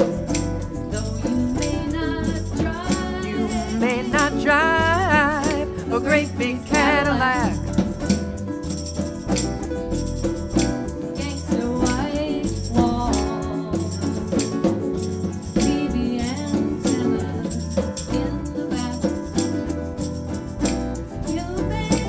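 Live band playing an instrumental passage: bass and guitar under a steady shaker beat, with a wavering lead melody from about three to eight seconds in.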